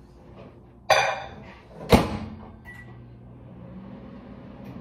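Microwave oven being started: a clatter about a second in, the door shut with a loud bang about two seconds in, a short beep, then a low steady hum as the oven runs, heating a cup of milk and chocolate.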